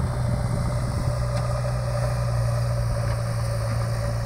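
Diesel engine of a backhoe loader running steadily at a working site, a low even drone.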